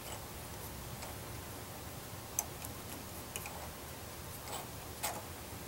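Hand tap being turned with a tap wrench to cut threads in the radial holes of a small metal antenna mount: a few faint, sharp metallic clicks and ticks, the clearest about two and a half seconds in and again about five seconds in.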